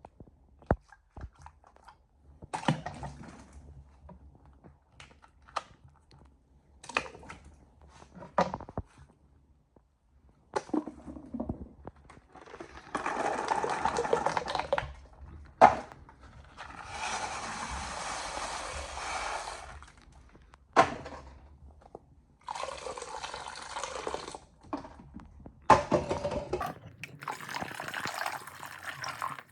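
Toilet water sounds: scattered clicks and knocks, then several separate rushes of flushing water, each a few seconds long.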